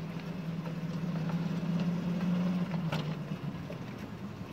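7¼-inch gauge miniature railway locomotive running with a steady low hum that fades about three and a half seconds in, with a sharp click about three seconds in.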